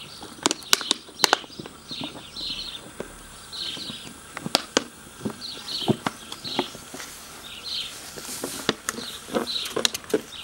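Crinkly plastic crackling and snapping in irregular bursts as puppies chew and paw at it. A high chirp repeats about once a second behind it.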